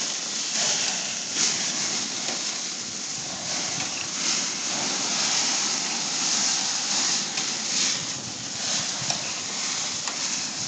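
Hamburger patties sizzling on a grill: a steady sizzle with occasional faint crackles.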